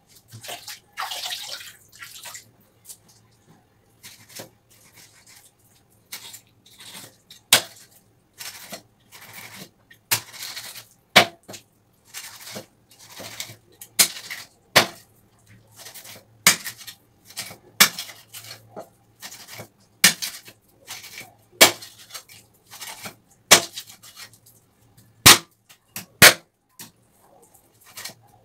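A large knife chopping milkfish on a wooden log block: many irregular sharp knocks of the blade striking the wood, some louder than others. A short splash of hands in a basin of water comes near the start.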